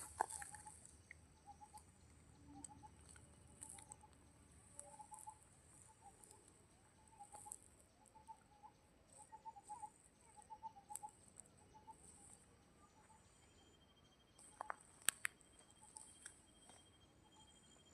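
Near silence with faint, scattered bird chirps and soft ticks, and a couple of sharper clicks about fifteen seconds in.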